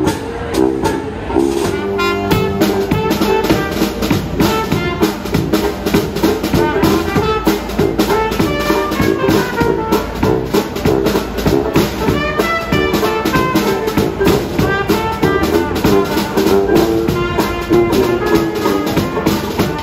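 Small jazz band with brass and drum kit playing a lively tune: a steady drum beat under a brass melody.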